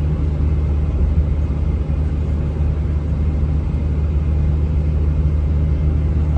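Steady low drone of a 4th-gen Ram pickup cruising on the road, heard inside the cab: its 6.7 L Cummins turbo-diesel running under light load, blended with tyre and road noise.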